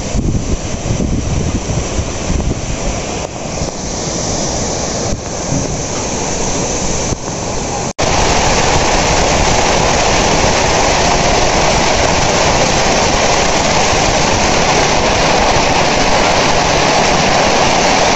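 Storm wind gusting hard, buffeting the microphone. After a sudden cut about eight seconds in, a steady heavy downpour of rain and hail follows, with water streaming off a roof edge.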